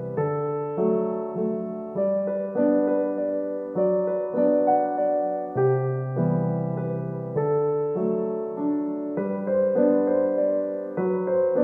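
Background music: a piano piece, with notes struck and fading in an even rhythm over low chords that change every second or so.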